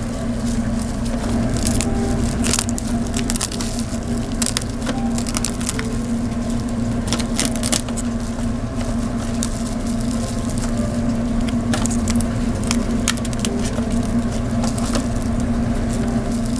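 Kitchen food-preparation sounds: irregular sharp clicks and cracks over a steady low hum.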